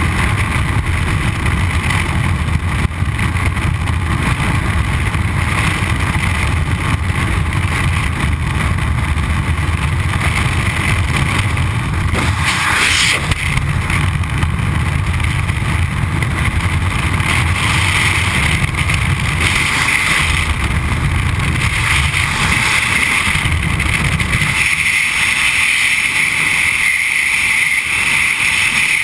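Freefall wind rushing over a skydiver's camera microphone: a loud, steady roar of buffeting air. Near the end the deep rumble drops away and a higher hiss takes over.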